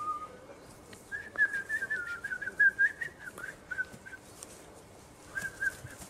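A person whistling a run of wavering, warbling notes for about three seconds, then a short whistle again near the end.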